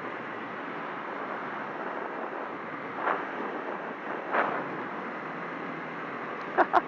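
Steady rush of wind over a motorcycle rider's microphone while riding, with two short louder sounds about three and four and a half seconds in.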